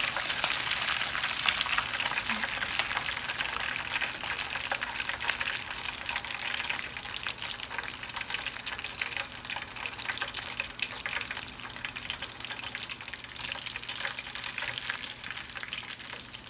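Skinless chicken pieces deep-frying in hot oil in a wok, the oil sizzling and crackling with many fine pops. It grows gradually quieter as the pieces are lifted out with a metal skimmer.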